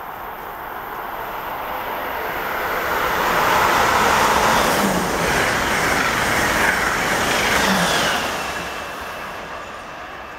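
Amtrak Acela Express trainset passing through at high speed without stopping: a rushing roar of wheels and air that swells over about three seconds, holds for about five, then fades away.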